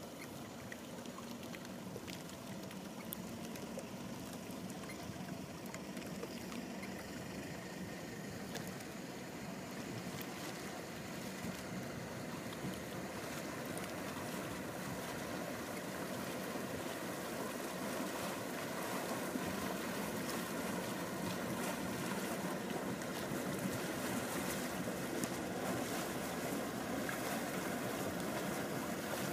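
Sealine SC35 motor cruiser's engines running at low revs as it manoeuvres in to dock, a steady hum that grows gradually louder as the boat comes closer.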